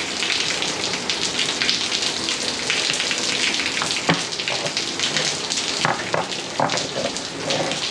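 Steady rain pattering on a surface, a dense crackling hiss, with a couple of light knocks about four and seven seconds in.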